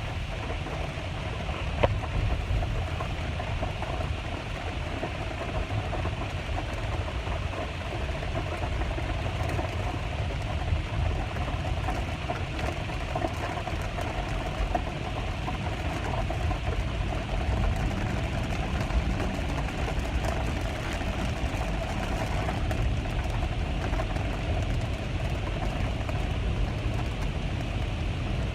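Rain falling steadily, over a continuous low rumble.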